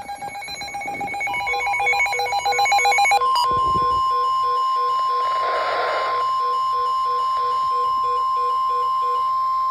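Emergency alert alarm tones: a fast, trilling, bell-like multi-tone alarm that grows louder for about three seconds, then a long steady high warning tone like the weather radio's alert tone, with a lower beep pulsing about twice a second beneath it and a brief hiss midway.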